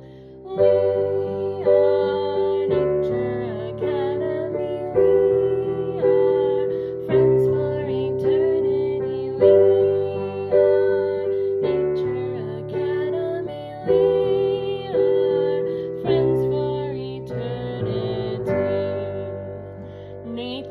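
Piano accompaniment striking a chord about once a second, with a woman singing a melody over it.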